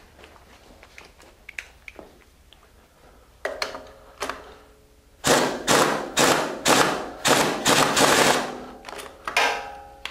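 Pneumatic impact wrench hammering the top nut of a strut assembly tight in short repeated bursts: two brief blips, then a run of about eight quick bursts in a row from about five seconds in. It is seating the nut that holds the new strut cartridge in the compressed coil spring.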